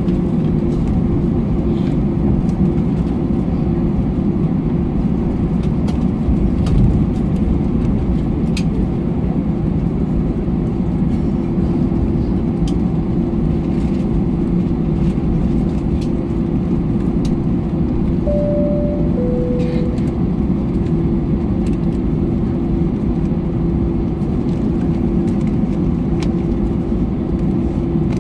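Cabin noise of an Airbus A321 taxiing, its CFM56 engines running at taxi power: a steady hum over a low rumble, with scattered faint clicks and rattles. About two-thirds of the way through, a two-note falling cabin chime sounds once.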